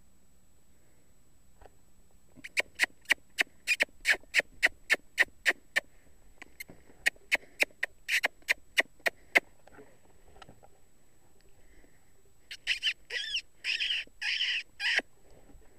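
Squeaking fox call, blown or squeezed to lure a fox. A run of short, sharp squeaks comes at about three a second, then after a pause a few longer squeals that rise and fall in pitch.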